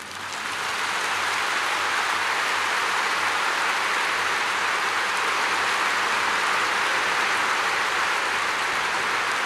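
A large stadium crowd applauding, a dense steady clatter of clapping that swells up within the first second and then holds.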